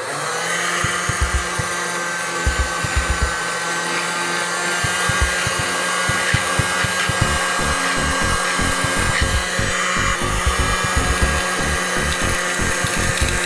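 Small electric motor of a homemade cola-can mini vacuum cleaner switching on and running steadily with a high whine, with irregular rattling clicks that grow denser from about five seconds in.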